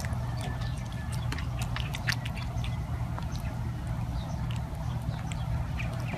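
A monkey licking and smacking at soft food on a plastic spoon, making quick, irregular wet mouth clicks. A steady low hum runs underneath.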